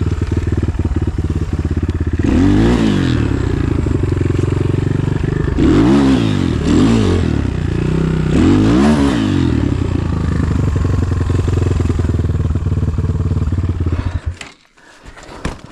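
Enduro motorcycle engine running, with the revs rising and falling sharply four times as the throttle is worked. The sound cuts off suddenly about a second before the end.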